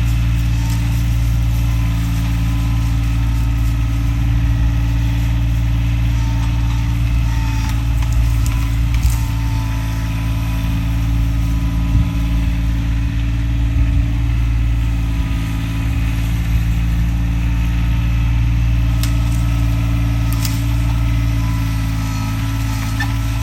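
Tractor engine running steadily at an even speed, with a few short sharp clicks here and there.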